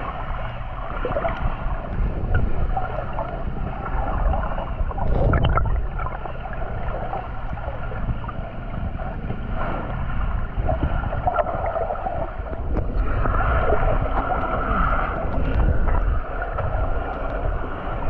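Muffled underwater sound picked up by a camera below the sea surface: rushing, gurgling water over a steady low rumble.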